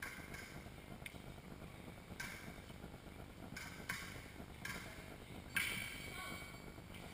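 A few scattered sharp clicks and clinks, the loudest about five and a half seconds in, with short patches of hiss-like noise between them.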